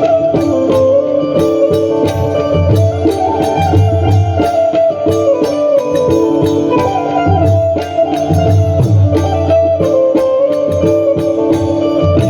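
Loud Indian folk-style music played over a DJ sound system: a sustained melody over a steady hand-drum beat.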